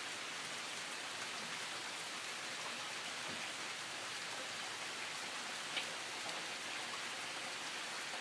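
Steady hiss of falling rain, even throughout, with one faint tick just before the six-second mark.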